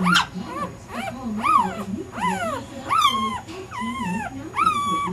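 Newborn boxer puppies crying: high, squeaky whines that rise and fall in pitch, one after another about every half second.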